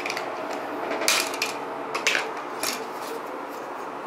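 Plastic snap clips of a laptop screen bezel clicking and cracking as the bezel is pried off the display, a handful of sharp snaps in the first three seconds over a faint steady hum.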